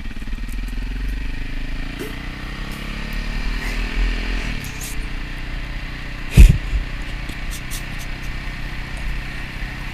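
KTM 450 EXC's single-cylinder four-stroke engine under way, its pitch rising as it pulls and then dropping at a gear change about four and a half seconds in. There is low wind rumble on the microphone, and a loud thump comes about six and a half seconds in.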